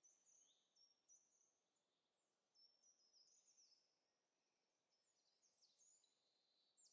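Faint birdsong: groups of short, high chirps and whistled phrases, with a rapid trill starting near the end.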